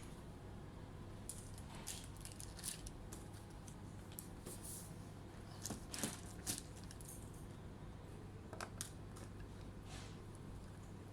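Scattered small clicks and brief rustles of hands handling small hard objects, over a steady low hum. The loudest clicks come about six seconds in, and again a couple of seconds later.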